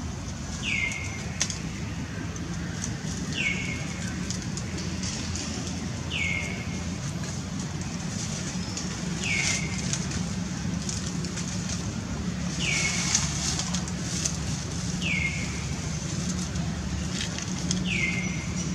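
A bird repeating a short downward-sliding call about every three seconds, over crackling and rustling of dry leaves and a low steady hum.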